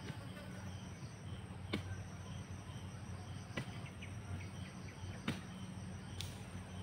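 Sharp knocks about every one and a half to two seconds over a steady low hum, with insects chirping faintly.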